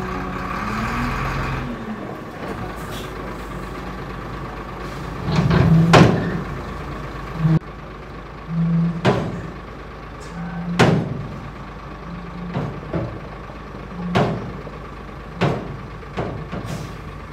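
Three-axle dump truck's engine running as its tipper bed lowers after dumping stone chips, with a series of about ten sharp bangs from the truck body starting about six seconds in, spaced one to two seconds apart.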